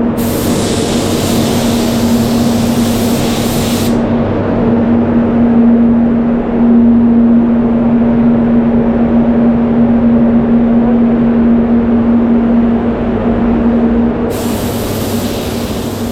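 Spray booth fans running with a steady hum, under the high air hiss of a spray gun applying clear coat in two passes: one for about the first four seconds, another starting near the end.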